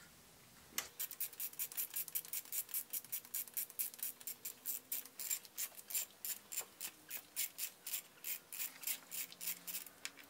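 Hand ratchet wrench clicking in a fast, even rhythm of about five clicks a second while a thermostat-housing bolt is worked loose; the clicking starts about a second in.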